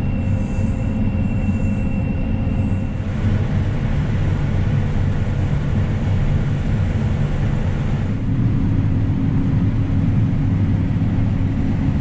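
John Deere combine running under load while harvesting corn, heard from inside the cab: a steady deep machine drone. A thin high whine sits over it and stops about three seconds in.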